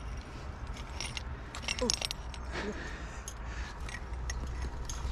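Metal carabiners and climbing gear racked on a harness clinking and jangling in scattered irregular clicks as the climber moves down the rock.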